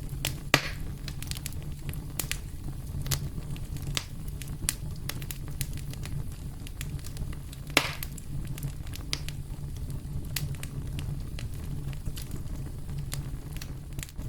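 Campfire crackling: a steady run of sharp wood pops and snaps over a low steady rumble, with two louder pops, one about half a second in and one near the middle.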